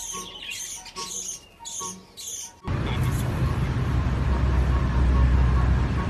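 A budgerigar chirping in quick high bursts, about two a second, over light background music. About two and a half seconds in this cuts off abruptly to a louder, steady low rumbling noise.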